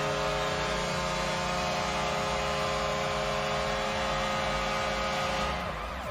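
NHL arena goal horn sounding one long steady blast that stops about five and a half seconds in.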